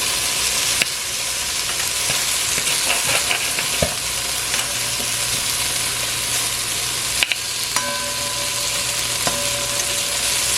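Sliced okra frying in oil in a pot, a steady sizzle, with a few scrapes and knocks of a spoon being stirred through it.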